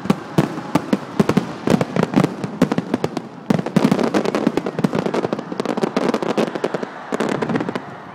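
Fireworks display: a dense, rapid crackle of many small bangs and pops, thickening about halfway through and thinning out near the end.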